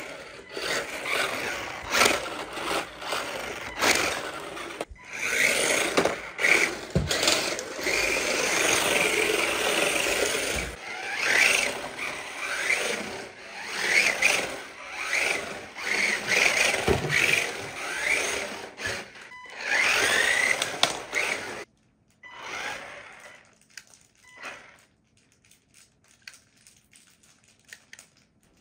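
A 1:18 scale four-wheel-drive RC drift car running on a laminate wood floor: its small electric motor whines up and down in pitch with the throttle, and its tyres scrape and skid through slides, with many clicks and knocks. About two-thirds of the way through it cuts off suddenly, leaving only a few faint clicks.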